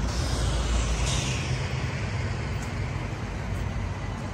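Road traffic rumbling steadily, with a hissing swell in the first couple of seconds that fades away, as of a vehicle passing.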